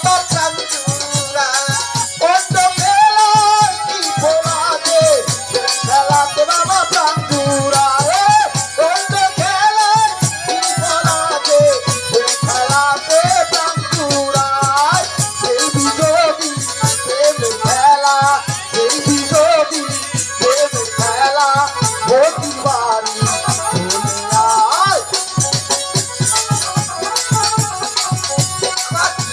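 Live Bandari folk devotional music: a steady drum beat and jingling rattles under a melody that slides and bends in pitch, carried by violin.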